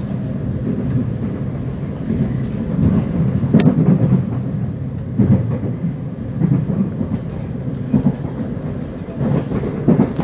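Class 707 electric multiple unit heard from inside the carriage while running: a steady low rumble of wheels on rail, with uneven clatter over the track and a sharp click about three and a half seconds in.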